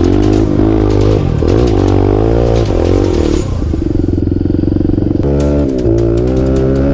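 Dirt bike engine revving up and down on a trail ride, the pitch rising and falling several times, with a steadier stretch past the middle.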